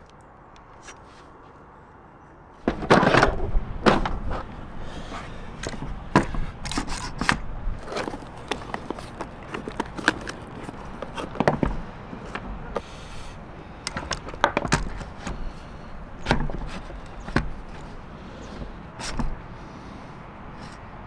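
Low room tone for about the first two and a half seconds, then a string of irregular knocks, clunks and scrapes as tools and timber are handled, the loudest a clatter just after it starts.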